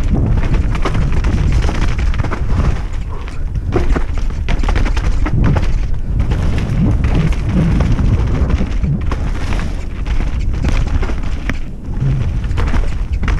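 Wind buffeting the microphone of a helmet-mounted camera during a fast mountain-bike descent, a constant heavy rumble. Through it come steady rattles and knocks from the bike over rough, wet trail.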